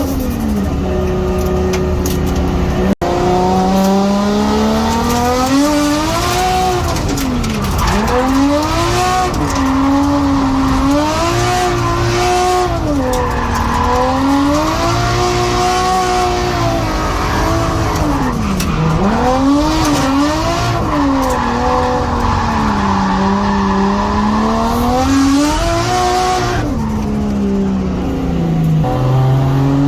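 Nissan R32's RB20DET turbocharged straight-six revving up and down over and over as the car is drifted, with tyre squeal in stretches. The sound drops out for an instant about three seconds in.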